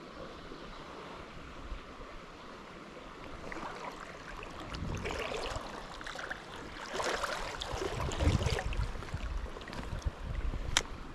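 Running water of a small river, an even rushing that swells louder and more uneven in the middle, with a single sharp click near the end.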